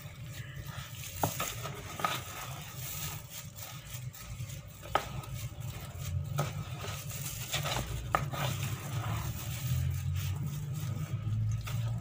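Silicone spatula stirring and scraping a crumbly flour mixture in a metal tray, with a few sharp taps where it knocks the tray. Warm water is being worked into the tapioca flour to bring it together as a dough.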